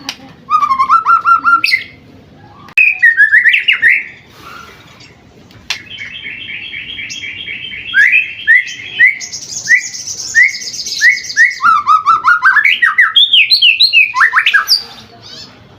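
White-rumped shama (murai batu) singing a varied repertoire of phrases: loud bursts of rapid repeated notes and trills, some low and some high, several sweeping up or down, with short pauses between phrases.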